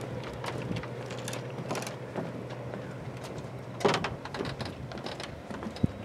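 Footsteps on the wooden planks of a lakeside pier: irregular hollow knocks, the loudest about four seconds in, over a steady low hum.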